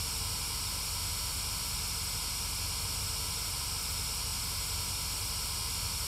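Steady white-noise static from a GhostTube spirit box app, an even hiss with no words breaking through it.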